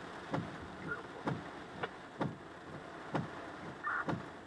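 Heavy rain heard from inside a car, with a dull knock repeating evenly about once a second.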